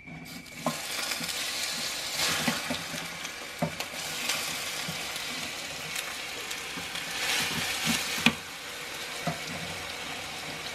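Hot oil in a clay cazuela sizzling and crackling as handfuls of sliced nopales (cactus paddles) are dropped in, the sizzle swelling with each handful. A sharp knock near the end, after which the frying settles to a steadier hiss.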